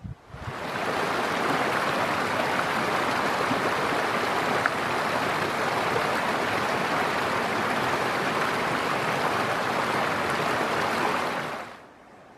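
Small mountain creek rushing and splashing over rocks in a little cascade, a steady even rush of water. It starts about half a second in and cuts off abruptly near the end.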